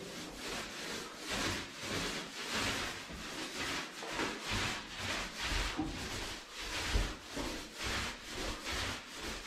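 Paint roller on an extension pole being rolled up and down a wall, a rhythmic rasping swish with each stroke, about two a second.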